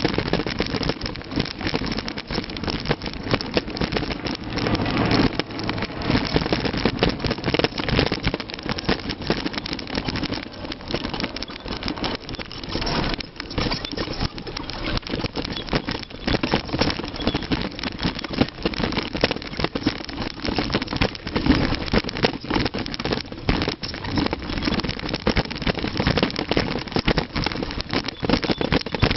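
Mountain bike rolling fast down a rough dirt trail: a continuous rumble of tyres over the ground with dense rattling and knocking from the bike over bumps.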